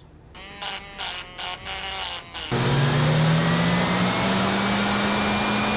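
A two-plane balancing machine spins up a small turbojet's rotating assembly during a balancing run. About two and a half seconds in, a loud steady whir starts, with a faint whine slowly rising in pitch. Before it come a few short sounds of shifting pitch.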